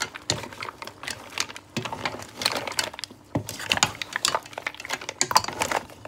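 Mussel shells clattering against each other and the pan as the mussels and shrimp are stirred with a spatula: quick, irregular clicks and clacks.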